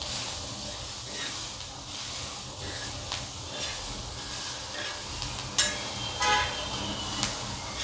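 Green chillies, garlic, peanuts and coriander sizzling in oil on a flat tawa, with a spatula scraping and tapping across the pan as they are stirred while roasting. About five and a half to six seconds in come two brief, louder squeaky sounds.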